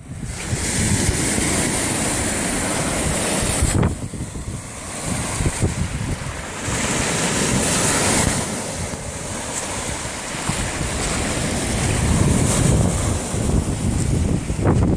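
Lake Ontario waves, with wind buffeting the phone's microphone as a gusty low rumble. The sound dips briefly about four seconds in.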